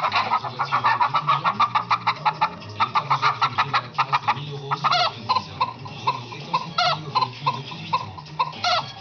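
Hen-like clucking that starts suddenly: rapid clucks, several a second, for about four seconds, then slower single clucks about two a second broken by a few longer squawking calls.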